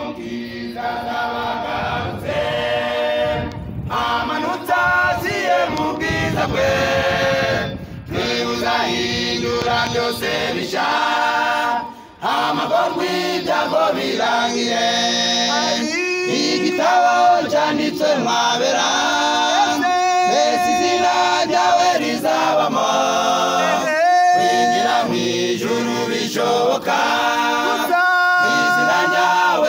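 A choir singing, with short pauses between phrases.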